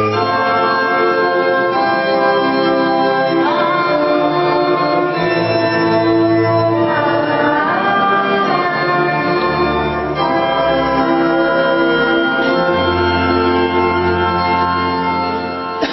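Organ-style music of sustained chords over slow-changing bass notes, the chords shifting every couple of seconds.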